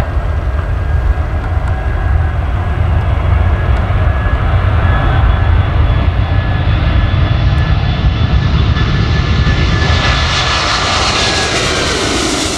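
Turbofan jet engines of a KC-330 tanker running with a loud, steady low rumble and a thin fan whine. Over the last few seconds a rising hiss spreads higher and louder.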